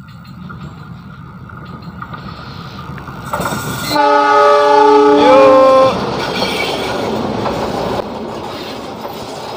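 Argo Wilis express's diesel locomotive approaching and sounding its horn: a loud chord of several notes lasting about two and a half seconds, stepping up in pitch near its end. Then comes the steady rumble and rattle of the carriages passing close by.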